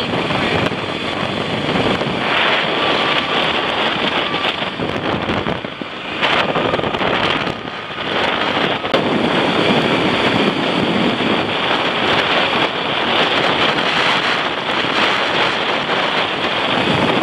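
Wind buffeting the microphone of a moving moped, mixed with road and traffic noise; it eases briefly twice near the middle.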